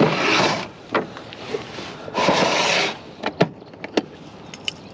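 Handling noise from fishing gear while a caught bass is unhooked in the canoe: two short scraping rushes, then several sharp clicks and knocks in the second half. A plastic tackle box is being handled.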